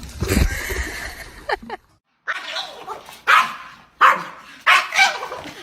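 Dog barking repeatedly: several sharp barks under a second apart in the second half. Before them there is a low rumbling noise and a brief whine.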